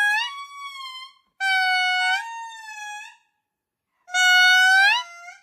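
Indri (babakoto) song: loud, pure wailing notes in three phrases with short gaps between them. Each phrase is a held note that swoops upward at its end, followed by a second note.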